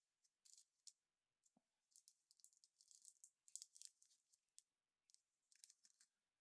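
Slime being squished and poked, giving faint irregular clicks and crackles in quick clusters.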